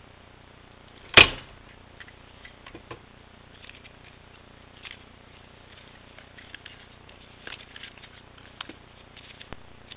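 A single loud, sharp clack from a Bind-It-All binding machine about a second in as its handle crimps the wire rings shut, followed by small clicks and light rustling of cardstock as the bound book is taken out and handled.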